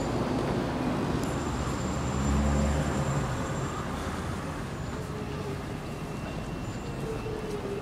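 Steady city street traffic noise from passing cars and buses. A low rumble swells briefly about two to three seconds in.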